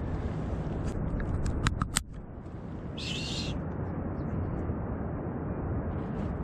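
A gull gives one short harsh call about three seconds in, over a steady low rumble; a few sharp clicks come just before it.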